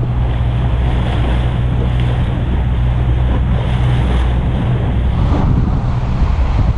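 Motorboat engine running with a steady low hum, under heavy wind noise on the microphone and water rushing past the hull. The engine note and the hiss shift about five seconds in.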